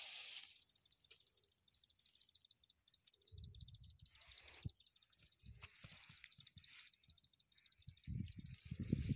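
Soybean plants rustling and low bumps on the phone's microphone as a hand pushes through the plants, loudest near the end. Behind them, a high, fast, even chirping trill runs on at one pitch.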